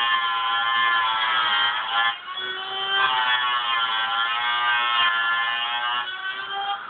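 Electric drill whining as its bit cuts into the car's sheet-metal fender. The whine stops briefly about two seconds in, then runs again until just before the end, its pitch dipping a little as the bit bites.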